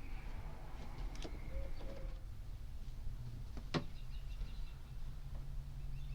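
Two clicks, a faint one about a second in and a sharper one past the middle, over a steady low rumble, with two faint short calls early on.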